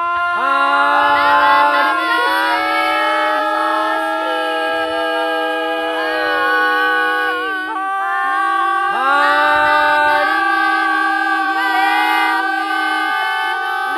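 A small group of singers holding long sung notes without instruments. Several voices overlap into a sustained chord, each new note swooping up into pitch, with a short lull about eight seconds in.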